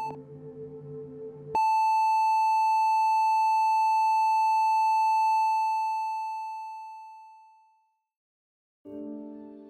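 A short electronic beep as the countdown timer ticks, then, about a second and a half in, a loud steady electronic tone sounds as the countdown runs out; it holds for a few seconds and slowly fades away. Soft piano music comes in near the end.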